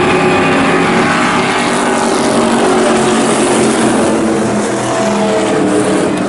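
A pack of Pure Stock dirt-track race cars running at speed around the oval, several engines sounding at once, their pitch rising and falling as the cars pass and back off.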